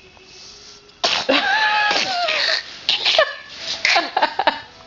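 A baby sneezing suddenly about a second in, followed by a drawn-out vocal sound falling in pitch and a few short vocal bursts.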